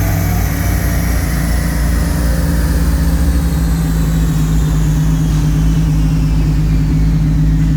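Turbocharged 1JZ straight-six idling steadily after a dyno pull, while a high whine falls slowly in pitch as it spins down.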